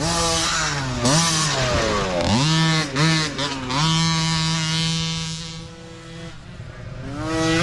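Mini dirt bike engines revving hard, the pitch climbing and dropping over and over as the riders work the throttle and shift. Midway one engine holds a steady high note for about two seconds and fades as it moves away, then engine noise rises again near the end.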